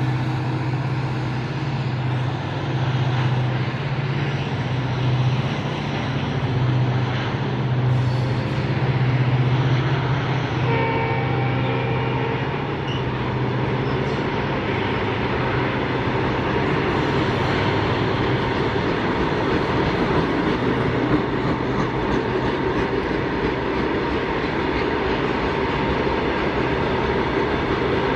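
Twin EMD diesel freight locomotives (WDG-4 and WDG-4D) passing with a steady low engine drone, a short horn note about eleven seconds in. The drone fades after about eighteen seconds, leaving the loaded ore wagons rumbling and clattering over the rails.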